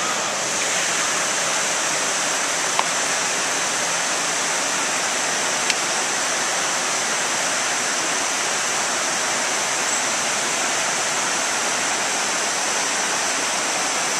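Steady rush of creek water pouring below a dam, with two brief clicks about three and six seconds in.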